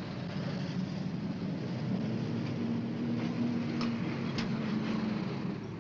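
Tracked armoured vehicle's engine running steadily, with a few light clicks.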